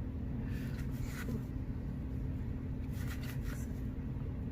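Trading cards being handled and flipped through, with a few faint brief rustles, over a steady low hum.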